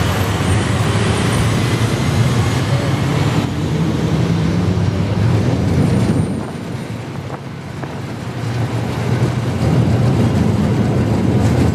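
Blackpool open-top boat tram running along street rails: a steady low rumble of motor and wheels, with road traffic around it. The rumble eases off for a few seconds past the middle, then picks up again.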